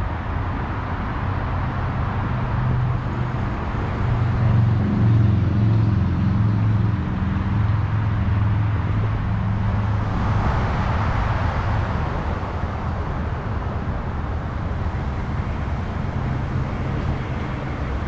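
Outdoor road traffic: a steady low engine hum under a wash of traffic noise. The hum strengthens a few seconds in, and a vehicle goes by about halfway through.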